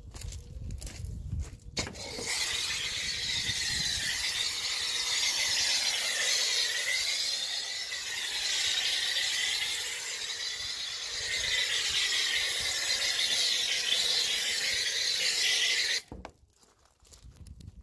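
A pressure washer's snow foam lance spraying pre-wash foam onto a car's bodywork: a steady, hissing spray with a slowly wavering tone as the jet sweeps across the panels. It starts about two seconds in and stops abruptly near the end as the trigger is released.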